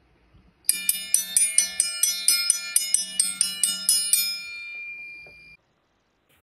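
Short intro jingle: a quick run of high, bright struck notes, about four or five a second, ending on a last note that rings on for about a second and then stops.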